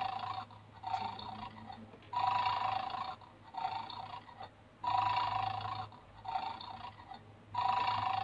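Electronic snoring from a toy bulldog's small speaker: the 'Bad Dog' game's sleeping sound, a loud tinny snore alternating with a softer one in a steady cycle about every three seconds. It is looping while the dog 'sleeps' over its bone and has not been set off.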